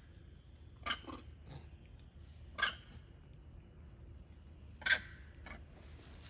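Short, sharp macaque calls, about five brief cries spread a second or two apart.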